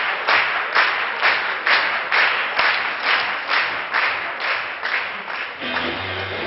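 Hands clapping together in a steady beat, about two claps a second. About five and a half seconds in, the claps stop and guitar music comes in.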